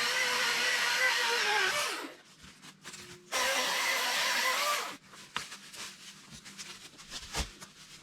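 Milwaukee M18 Fuel battery-powered electric chainsaw running in two short bursts, a steady motor whine that sags in pitch as it ends. The first burst stops about two seconds in and the second runs from about three to five seconds. After that come a few light knocks and rustles.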